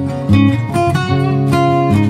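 Background music led by acoustic guitar playing chords, the notes changing several times a second.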